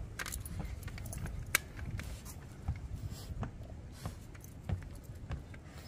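Footsteps climbing wooden stairs: irregular knocks of feet on the treads, about one a second, over a low rumble.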